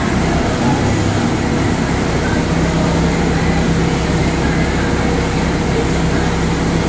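Orion giga coaster's lift hill running as a loaded train climbs: a steady mechanical hum, with a low steady tone joining about two and a half seconds in.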